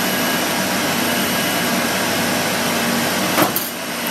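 Steady, loud rushing noise of running machinery or air, with a single sharp click a little after three seconds in.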